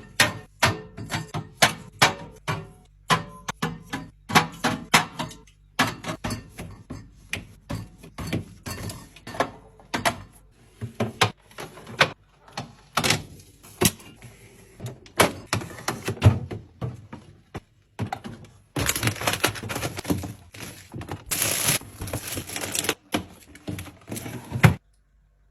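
Refrigerator being restocked: a fast, irregular run of clacks and knocks as plastic containers, jars and bottles are set onto fridge shelves and bins. About three-quarters through there is a few seconds of denser, continuous noise. The sound stops abruptly just before the end.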